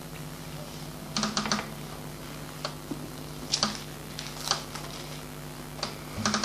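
Several short clusters of light clicks and taps, over a steady low hum.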